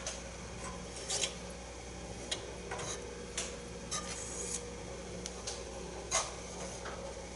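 Irregular scratching and rubbing as thread is handled and drawn across a thread wrap on a wooden dowel, with a hand brushing the work surface. A faint steady hum runs underneath.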